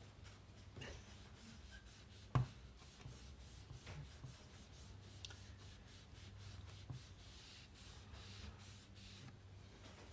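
Faint rubbing and light scratching as the edges of a MacBook Pro screen are wiped clean by hand, with one sharp knock a couple of seconds in and a few small taps.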